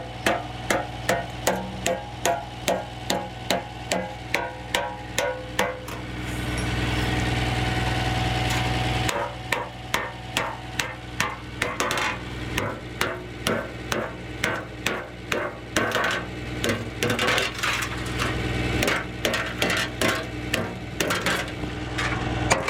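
Hammer striking metal repeatedly during bodywork on a damaged truck cab, about two to three blows a second, broken by a few seconds of steady noise in the middle, over a low steady hum.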